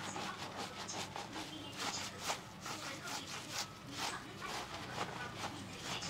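Fingers scrubbing shampoo lather through long wet hair and over the scalp: a run of irregular, short, wet squishes.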